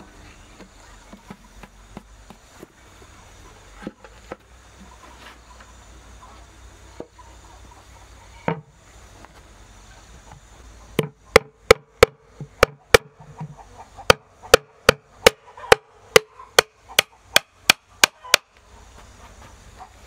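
Hammer blows on a wooden board lid fitted onto a hollowed-out log beehive: a few scattered knocks at first, then about halfway through a run of around twenty sharp strikes at about three a second, each with a short ring, stopping near the end.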